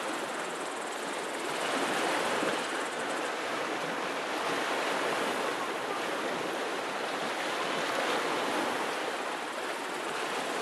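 Sea surf: small waves washing on the shore in a steady hiss that swells a little about two seconds in and again near eight seconds.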